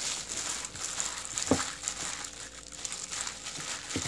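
Clear plastic disposable glove crinkling as a hand kneads marinated raw beef in a glass bowl, with a knock about a second and a half in and a sharper, louder knock near the end.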